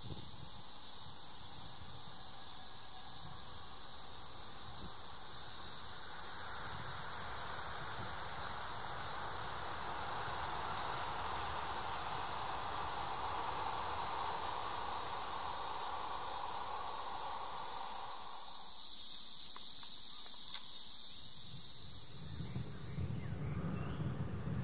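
Distant Shinkansen high-speed train passing on a viaduct: a steady rushing noise that swells and then fades, with high insect chirring throughout. Near the end a louder low rumble comes in.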